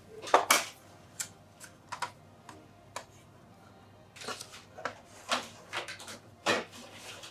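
Sharp plastic and metal clicks and knocks from the disc drive and casing of an opened Xbox One X being handled and lifted out by hand: one loud click about half a second in, a few faint ticks, then a quick run of clicks and knocks from about four seconds in.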